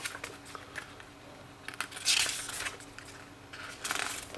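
Paper pages of a booklet being turned by hand: a papery swish about two seconds in, the loudest, and a shorter one near the end, with lighter rustles between.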